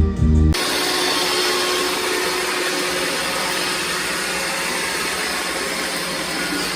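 A steady rushing noise with a faint low hum, starting abruptly about half a second in after a few moments of music.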